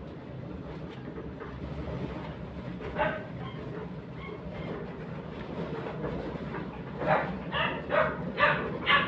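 Steady low rumble of an automatic sliding gate's motor and gate running, with a dog barking once about three seconds in and then five times in quick succession near the end.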